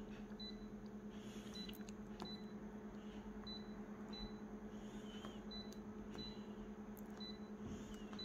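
Photocopier touchscreen beeping as its keys are tapped: short, high single beeps at irregular intervals, one per tap, over a steady low hum.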